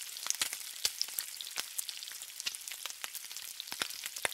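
Food sizzling on a hot flat-top griddle: a steady frying hiss with frequent sharp crackles and pops of spitting fat.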